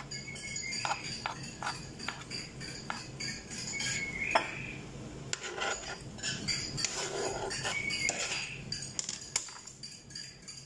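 Kitchen knife cutting boiled beetroot on a plastic cutting board, a run of irregular taps and knocks, then the slices slid off the board into a glass bowl with a few light clinks.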